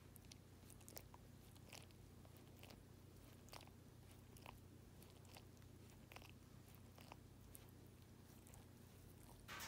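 A dog licking and nibbling its paw while grooming itself: faint wet smacking and chewing clicks, about one every half second to a second. A louder scuffle comes near the end.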